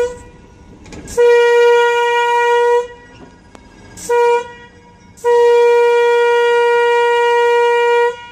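Locomotive horn sounding one steady note in the grade-crossing pattern: a long blast, a short one, then a final long blast, the warning for a train occupying a road crossing.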